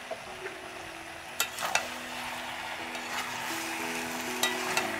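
Metal spatula stirring mixed vegetables in an aluminium kadai, with a steady sizzle of frying and a few sharp knocks and scrapes of the spatula against the pan. Soft background music with held notes comes in underneath.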